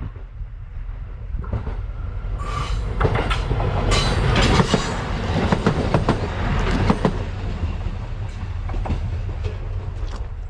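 A diesel railcar passing over a level crossing, with a steady low engine and rolling rumble and a quick run of wheel clacks over the rail joints, loudest in the middle and easing off toward the end.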